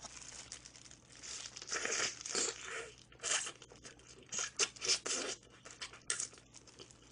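Close-up eating sounds of sauce-glazed fried chicken: a wet tearing bite and a slurping suck on the meat, then a run of short smacking chews.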